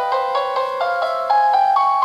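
Synthesized piano notes from the FingerPiano app on an iPhone, played by tapping its on-screen keys: a right-hand nocturne melody of about nine single notes in two seconds, each ringing on under the next.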